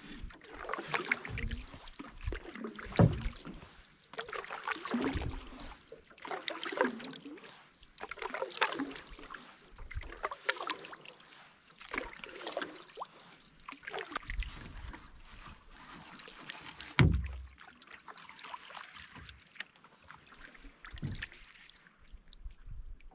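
Wooden canoe paddle strokes in calm lake water: a swish and gurgle about every two seconds. Two louder thumps, about three seconds in and again at about seventeen seconds, stand out above the strokes.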